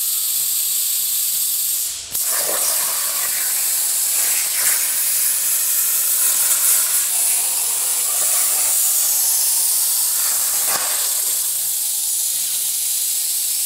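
CNC plasma cutter torch hissing as it cuts 16-gauge steel sheet. The hiss dips sharply for a moment about two seconds in, then runs rougher and a little louder for several seconds while cutting, settling back to a steady hiss near the end.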